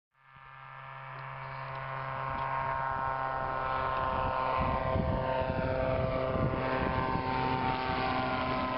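Small propeller airplane's engine running at full power as it takes off and climbs past, fading in and growing louder over the first few seconds, with its pitch sliding down partway through as it passes.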